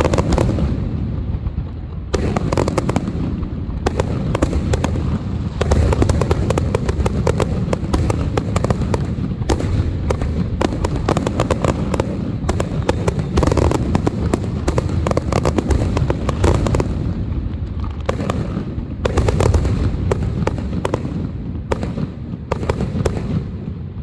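Fireworks going off in a dense, continuous barrage: rapid overlapping booming bursts with crackling, dying away near the end.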